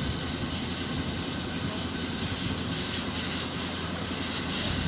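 LSWR M7 0-4-4 steam tank locomotive standing in steam, giving a steady hiss over a low, wavering rumble, with the hiss swelling now and then.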